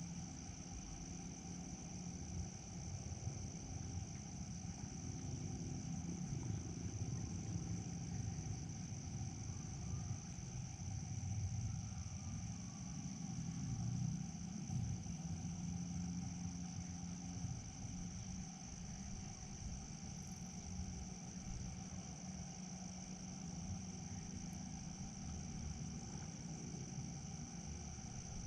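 Insects, such as crickets, trilling in a continuous, steady high drone, over a low rumble.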